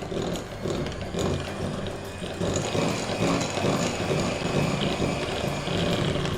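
Electric hand mixer running steadily, its beaters churning and rattling through creamed butter and brown sugar as the flavourings and raising agents are mixed in.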